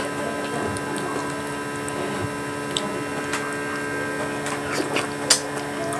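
Eating sounds of grilled fish and rice picked and eaten by hand: scattered small clicks and mouth smacks, the sharpest about five seconds in. A steady electrical hum runs underneath.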